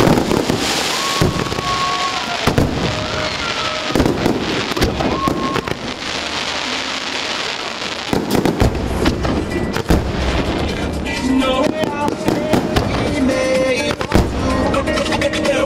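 Aerial firework shells bursting in quick succession over the music that accompanies the pyromusical display.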